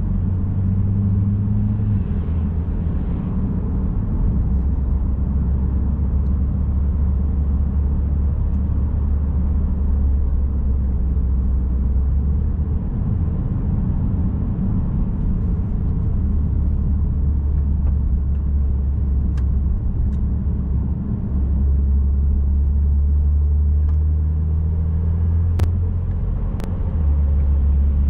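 A car driving: steady low engine and road rumble whose pitch steps up and down several times as speed or gear changes. Two brief clicks about a second apart near the end.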